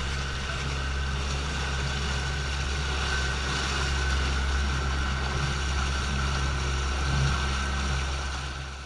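Fishing boat's engine running steadily with a deep, even hum, fading out near the end.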